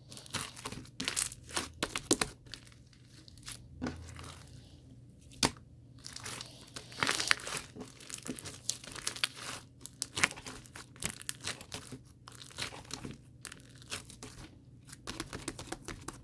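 Irregular crinkling and crackling handling noise, dense sharp clicks with no steady rhythm.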